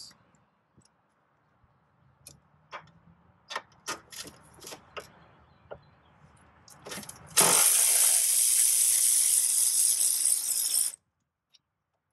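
A few light metal clicks and clinks as a socket on an extension is fitted onto a battery-tray bolt, then an electric ratchet runs for about three and a half seconds, spinning out the 12 mm bolt, and stops suddenly.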